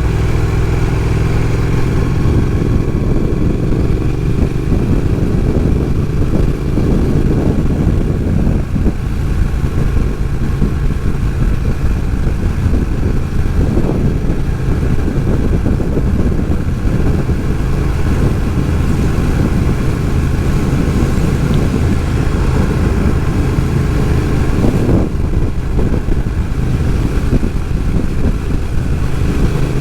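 Motorcycle engine running at road speed, heard from the rider's seat with wind rushing over the microphone. The engine note rises and falls with the throttle, with a brief break about 25 seconds in.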